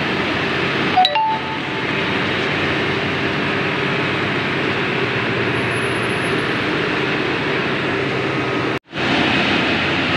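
Heavy diesel tractor-trailer truck's engine running steadily, with a brief metallic clink about a second in. The sound cuts out for an instant near the end.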